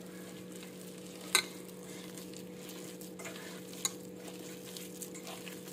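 A hand squeezing and mixing mashed potato, soaked semolina and chopped herbs in a stainless steel bowl, with a sharp click about a second and a half in and a fainter one near four seconds, over a steady low hum.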